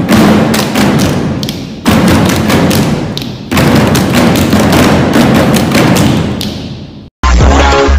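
Many hands rapidly slapping classroom desktops together, a dense patter of hits that breaks off abruptly about two seconds and three and a half seconds in, the last run fading away. Near the end it cuts to pop music with a heavy bass beat.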